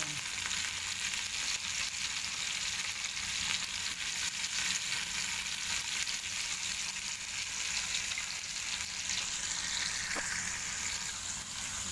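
Sliced onions sizzling as they sauté in hot oil in a non-stick frying pan: a steady crackling hiss, with a utensil stirring them partway through.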